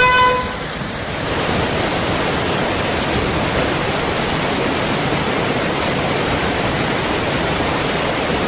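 Steady, loud rushing-water roar, a flood sound effect in a performance soundtrack. A held horn-like tone fades out in the first half second.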